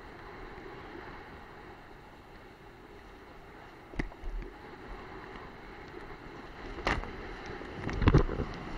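Wind and rushing water on the microphone of a kitesurfer's action camera as the surfboard skims fast over the sea, with a few sharp knocks of the board slapping chop.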